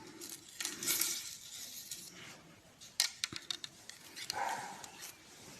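Handling and unwrapping a cheap raft fishing rod: rustling, with a quick run of light clicks and clinks about three seconds in.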